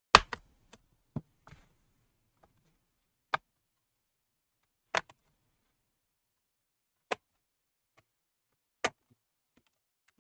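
Plastic snap clips of a Lenovo IdeaPad 3 laptop's bottom cover popping loose as the cover is pried off by hand: a string of about nine sharp clicks, irregularly spaced, the loudest at the very start.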